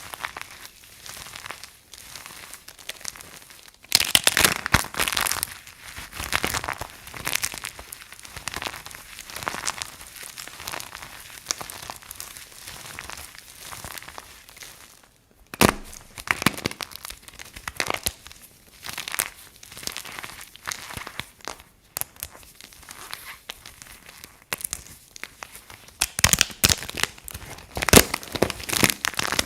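Dry soap crunching and crackling in irregular runs of sharp crackles, loudest about four seconds in, around the middle and near the end.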